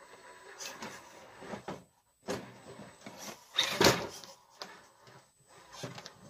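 1/10 scale Element RC Trailrunner crawler climbing wood and rock obstacles: stop-start bursts of its electric drive whining under throttle, with tyres and chassis scraping and knocking on the wood, loudest about three and a half seconds in.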